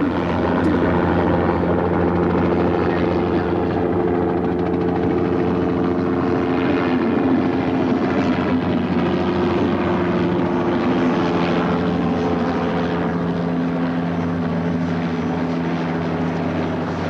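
Helicopter overhead, its rotor and engine running steadily.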